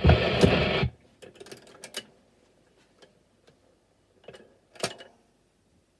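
The last note of a 1920s jazz band 78 rpm record played on a gramophone, cut off about a second in, followed by scattered small mechanical clicks and knocks from the gramophone, the loudest a little before five seconds in.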